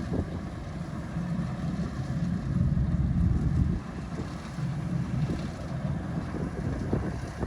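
Rice harvesting machine's engine running steadily with a low rumble, swelling a little louder about two and a half seconds in before easing back. Wind noise on the microphone.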